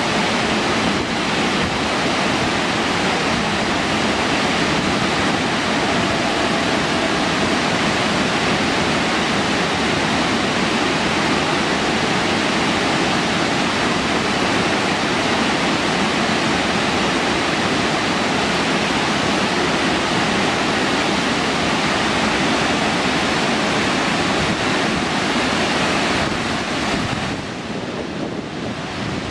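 McArthur-Burney Falls: water pouring and splashing down a mossy rock face in many streams, a steady loud rush. It dips briefly near the end, then comes back.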